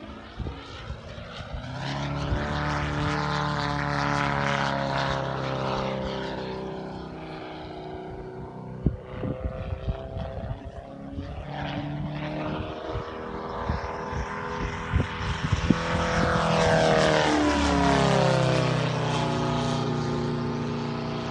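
Valach 420 petrol engine of a large-scale Yak 54 model aerobatic plane running in flight, its pitch rising and falling as the plane manoeuvres overhead. It swells about two seconds in and again near the end, with a few sharp crackles in the middle.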